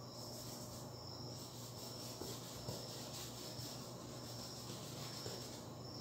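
Faint rubbing of a paintbrush on canvas, with a few small taps, under a high, pulsing chirp that keeps on in the background, like crickets.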